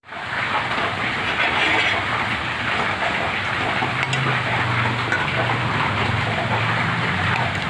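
Boiled eggs and potato slices frying in hot oil in a metal kadhai, a steady sizzling hiss. A low hum comes in about four seconds in.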